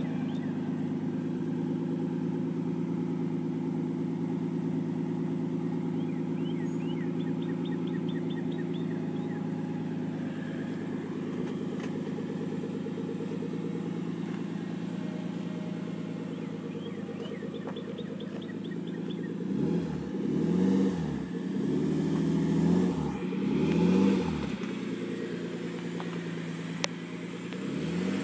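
Nissan 240SX's swapped RB25 straight-six running through an Apexi exhaust: it idles steadily, then is revved three times in quick succession about two-thirds of the way in, each rev rising and falling back, and once more near the end.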